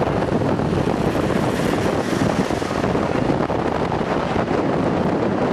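Steady wind buffeting the microphone from a moving car, over the rumble of road and engine noise.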